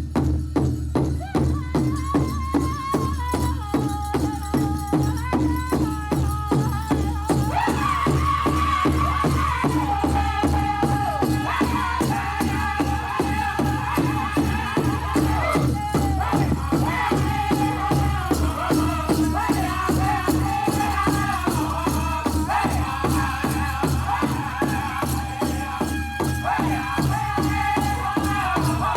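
A powwow drum group beating a big drum in a steady, even beat and singing a contest song. The voices come in about two seconds in and rise higher and louder about eight seconds in.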